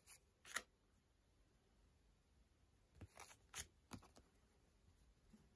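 Faint swishes of paper stickers sliding against each other as a stack is shuffled by hand: one short swish about half a second in, then a quick run of three or four slides around three to four seconds in.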